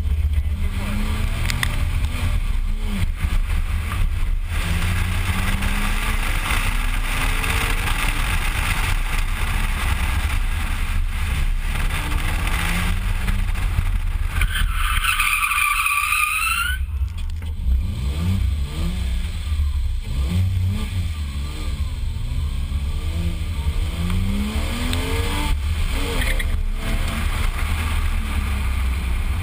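Porsche Boxster's flat-six engine revving up and down through an autocross run, with heavy wind buffeting on the microphone. About halfway through, the tyres squeal loudly for about two seconds in a wavering pitch as the car slides out of grip.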